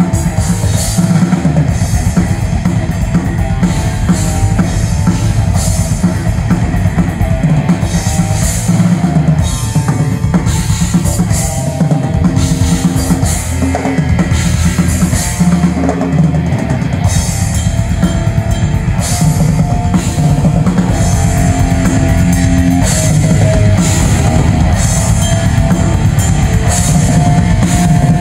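Solo Yamaha drum kit played continuously and loudly in a busy rock groove: dense bass drum and tom hits with frequent cymbal crashes. Held pitched notes sound underneath, like a backing track.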